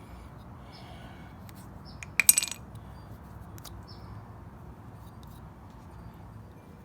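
A small metal part clinks a few times in quick succession with a brief metallic ring, about two seconds in, over a low steady background hum.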